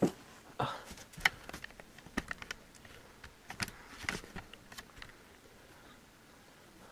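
Handling noise: scattered light clicks and taps as the recording camera is moved, thinning out after about five seconds.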